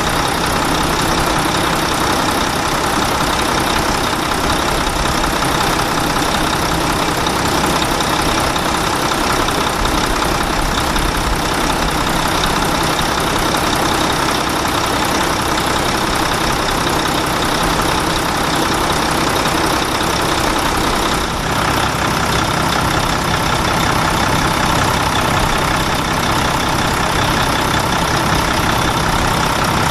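Truck engine running steadily, with a brief small dip in level about two-thirds of the way through.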